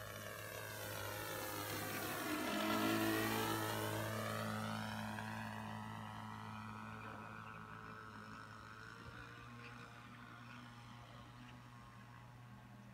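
OS 40-class two-stroke model aircraft engine running steadily at high revs as the radio-control plane passes, its propeller buzz swelling to a peak about three seconds in and then fading as the plane flies away.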